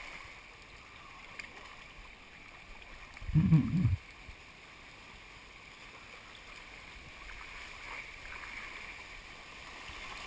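Steady rush of white water running over the rocks of a mountain creek, with one brief low thump a little over three seconds in.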